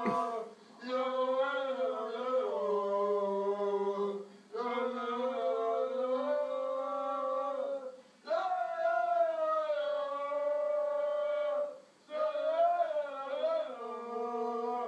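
Men singing together in long, drawn-out sung phrases, each held note broken off by a short pause about every four seconds.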